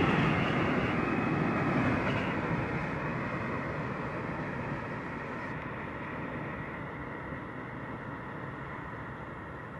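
Freight train rolling past on the track and moving away, its running noise fading steadily.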